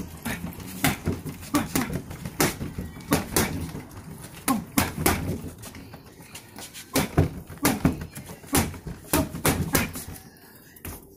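Boxing gloves punching a freestanding torso-shaped training dummy: a series of sharp smacks, often in quick combinations of two or three, thinning out about halfway through and stopping shortly before the end.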